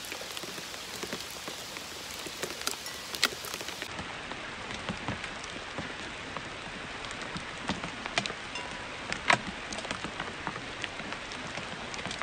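Hail falling: a steady hiss of small stones landing, with scattered sharp ticks of individual hailstones, one loudest about nine seconds in.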